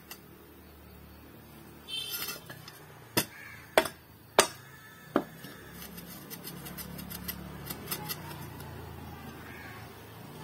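Sharp knocks and clinks of a metal hoe blade and its wooden handle being knocked together and against the ground while the handle is fitted. The three loudest knocks come about three to four and a half seconds in, followed by lighter clicks.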